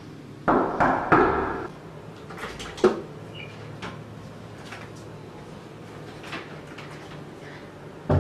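Knuckles knocking on a wooden panel door: a few knocks in two quick groups within the first second and a half. A single sharp click follows about three seconds in.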